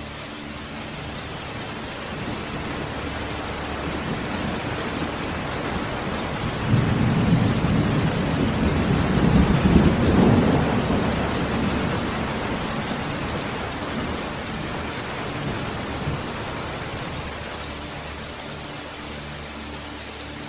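Steady rain with a long roll of thunder that builds from a few seconds in, is loudest around the middle, and slowly dies away.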